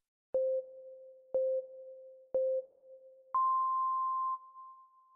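Electronic countdown beeps: three short, lower beeps about a second apart, then one longer, higher beep, the "go" signal that ends the countdown.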